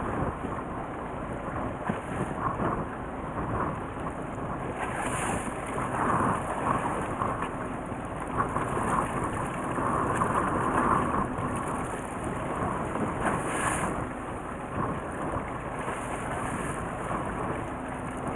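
Wind rumbling on the microphone over a steady rush of water and a boat's engine, on a small fishing boat on the bay. It swells louder for a few seconds around the middle.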